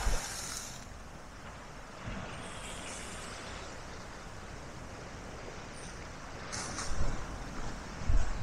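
Sea waves breaking on the shore, each wave surging into a hissing wash every few seconds, with wind gusting on the microphone near the end.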